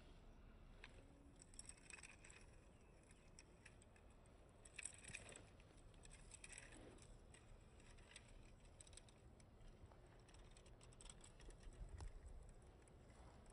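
Near silence with faint scattered rustles and small clicks as a small diecast toy jeep is pushed by hand over moss, pine needles and rock.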